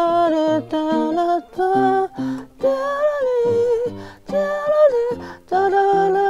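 A woman singing phrases of a J-pop ballad while accompanying herself on keyboard, with sustained sung notes over lower keyboard notes.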